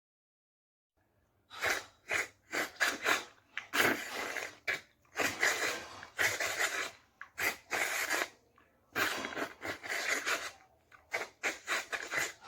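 Sound effects made with the mouth: after a short pause, a string of breathy, hissing bursts of uneven length, some short and some drawn out.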